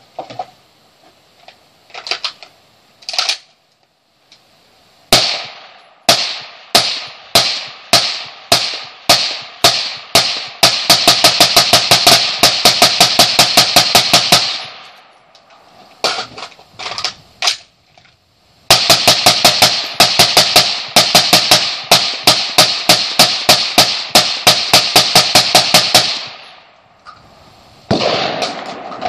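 Suppressed Bushmaster ACR rifle firing. After a few light handling clicks, shots come about two a second, then speed up into a long string of rapid fire; after a pause of a few seconds with a few clicks, a second long rapid string follows. The rifle is being fired hard to heat its barrel and handguard.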